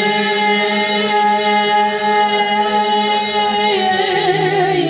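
Several singers holding one long chanted note together, unaccompanied; the pitch steps down about four seconds in.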